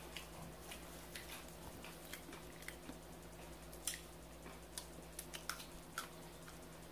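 Close-up eating sounds: a person chewing, with soft, irregular wet mouth clicks, the sharpest about four seconds in, over a faint steady hum.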